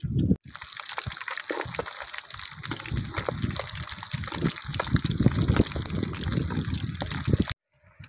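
Whole fish frying in hot oil in a wok: a steady sizzle thick with small pops and crackles of spattering oil. It starts about half a second in and cuts off suddenly near the end.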